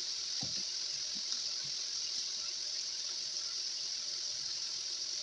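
Chicken livers sizzling in hot butter and oil in a frying pan as they brown: a steady high hiss with a few faint pops.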